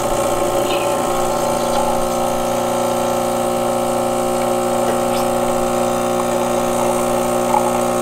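Home espresso machine's pump running steadily while pulling a shot, with espresso streaming from the portafilter spouts into the cup.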